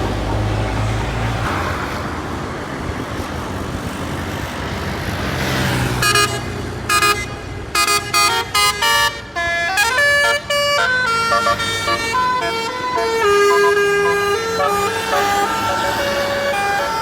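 Basuri telolet bus horn playing: a vehicle rumble for the first few seconds, then from about six seconds in a rapid run of short multi-tone toots, followed by a tune of held notes stepping up and down in pitch.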